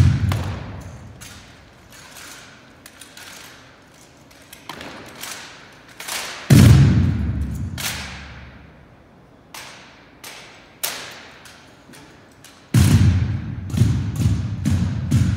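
A rifle drill team handling drill rifles in unison: rifle butts and boot heels striking a hardwood gym floor and hands slapping the rifles, each hit echoing through the big hall. Loud clusters of thuds come near the start, about six and a half seconds in, and from about thirteen seconds on, with lighter scattered taps between.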